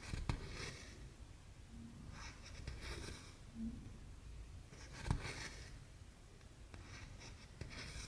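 Cross-stitch floss being drawn through 14-count Aida fabric, a soft scratchy rasp four times, about every two seconds, with a couple of sharp ticks.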